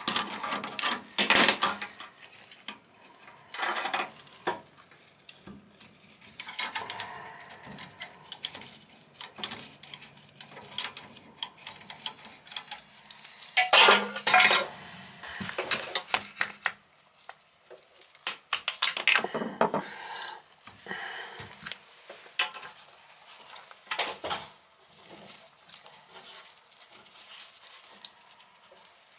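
Intermittent metallic clinks, scrapes and knocks of a wrench and plumbing fittings as a toilet's water supply line is unscrewed from its chrome shutoff valve, then the hardware at the toilet's floor bolts is worked loose. The loudest clusters of clatter come about 14 and 19 seconds in.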